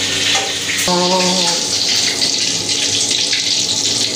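An egg frying in hot oil in a wok, a steady, even sizzle.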